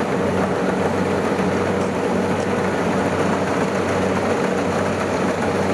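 Kubota DC70 combine harvester running steadily while cutting and threshing rice: an even engine drone with a constant low hum and machinery noise.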